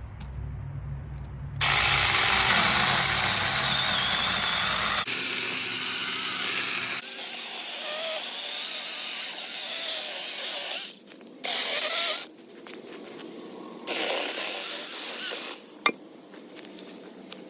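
Cordless 4-inch battery mini chainsaw running and cutting through branches: one long run of about nine seconds with its pitch wavering under load, then two short trigger bursts. A sharp click comes near the end.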